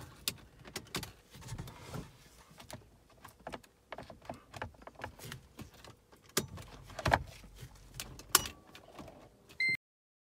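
Clicks, taps and rattles of the plastic climate-control panel and centre-console trim of a Mercedes W203 being handled and pried out of the dash, with a few sharper clicks partway through. Near the end there is a brief high tone, then the sound cuts off suddenly.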